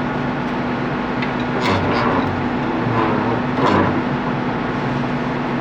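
Steady drone of running machinery with a constant low hum, and a few metallic knocks about two and four seconds in.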